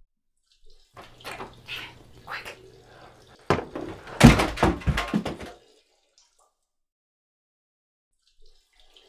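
A door being handled: light knocks and rustling, then about two seconds of louder thuds and rattling, after which the sound cuts to dead silence.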